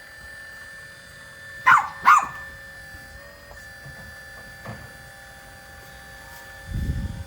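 Dog barking twice in quick succession, the loudest sound, over the steady whine of a 1/12-scale PC360 RC hydraulic excavator's brushless motor and pump, whose pitch shifts slightly partway through; a low rumble sets in near the end.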